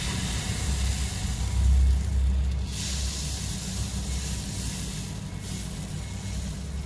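Rice-flour and coconut-milk batter sizzling as it is ladled into a hot, oiled aluminium apam mould, the hiss dropping away about five seconds in. A low steady rumble runs underneath.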